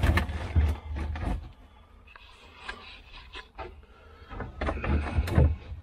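A plastic autopilot unit being handled and held against a fibreglass panel, giving scattered knocks, taps and rubbing, with a few low thuds.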